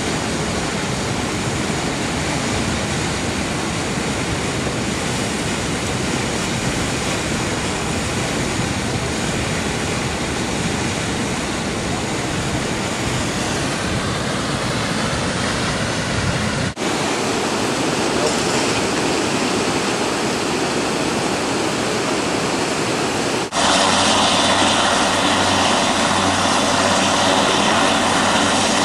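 Steady rush of muddy floodwater, broken by two short edits. From about two-thirds of the way in, a louder helicopter engine runs steadily with a low drone.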